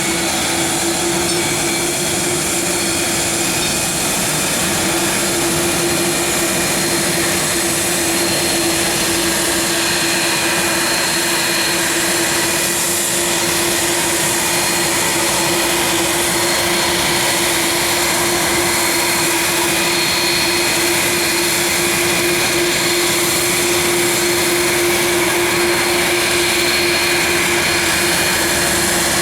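Jet airliner engines running steadily: a constant roar with a steady hum and a thin high whine, holding level throughout.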